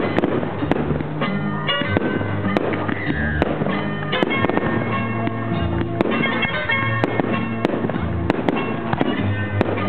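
Firework shells launching and bursting in the air, a rapid irregular series of sharp bangs over loud music.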